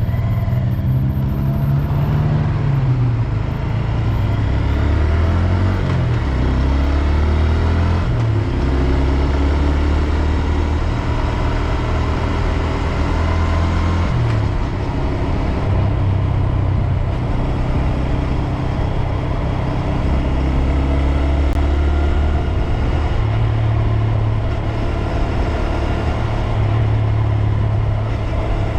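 2022 Honda Grom's single-cylinder engine running while the bike is ridden. Its pitch falls and rises as the rider changes speed and gear, with a drop in pitch early on and several step changes later.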